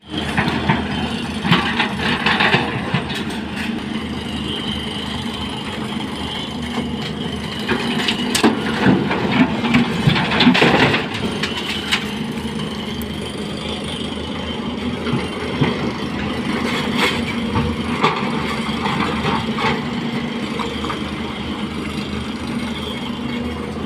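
Excavator's diesel engine running steadily while it works, with repeated bursts of clattering and knocking, loudest about ten seconds in.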